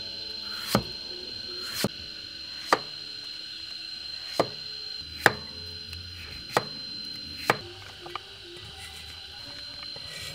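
Chinese cleaver slicing papaya on a round wooden chopping board: about eight sharp chops, roughly one a second and unevenly spaced.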